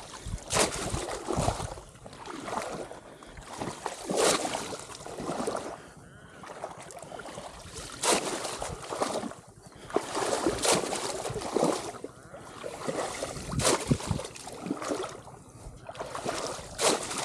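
Splashing of shallow muddy water as a bamboo ottal fish trap is plunged down into it and a person wades on, with a splash every second or two.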